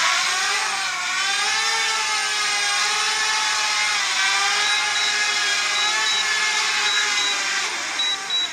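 Quadcopter drone's motors and propellers running at full power in sport mode: a steady whine whose pitch wavers slowly up and down as it strains to lift a phone hung beneath it.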